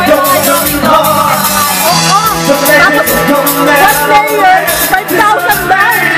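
Live band playing a rock song, loud: a man sings lead over drums and electric guitar, and a woman's voice joins near the end.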